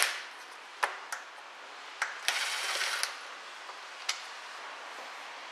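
Cordless driver with a Torx socket spinning briefly on a transmission sump-pan bolt, in one short burst near the middle, between several sharp metallic clicks and clinks of the tool and bolts.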